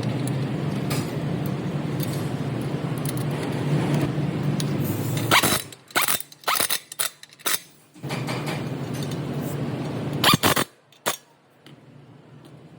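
Steady low mechanical running noise, broken about halfway through and again near the end by quick clusters of sharp metallic clinks and knocks, like tools and parts handled on metal.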